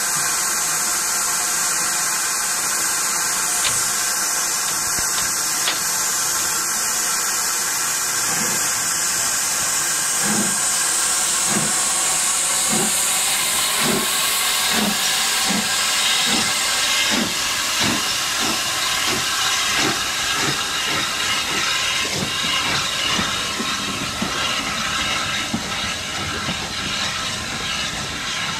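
LSWR M7 class 0-4-4 tank locomotive hissing steam while standing, then starting away with exhaust chuffs that begin about a second apart and quicken as it gathers speed, growing fainter near the end.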